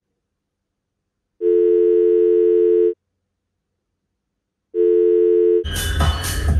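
Telephone ringback tone of an outgoing call: a steady low two-note tone for about a second and a half, a pause, then a second ring that is cut short near the end as electronic dance music comes in.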